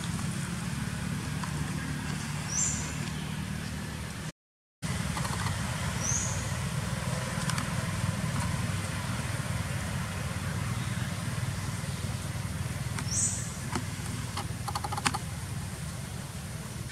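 Outdoor ambience: a steady low rumble with three short, high, rising chirps and a few faint clicks. The sound cuts out completely for about half a second around four seconds in.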